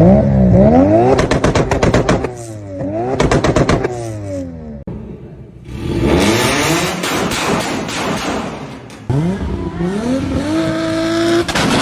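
Toyota Supra engine revved hard several times, each rev falling away into rapid popping and crackling backfires from the exhaust. Near the end a rev climbs and is held at a steady pitch.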